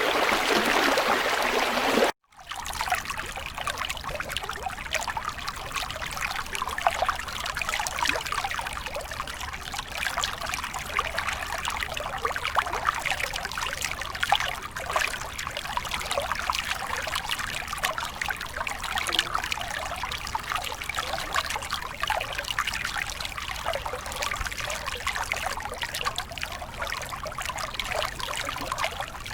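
Stream water flowing. About two seconds in, the sound cuts out for a moment and a lighter trickling flow follows, with many small splashes.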